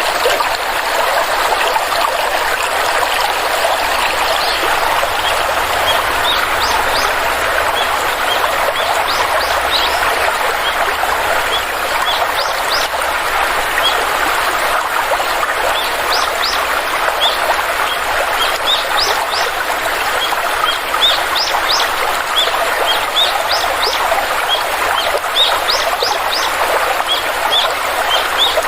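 Stream of water flowing steadily, with small birds chirping over it: many short, high, rising chirps in scattered clusters starting about six seconds in.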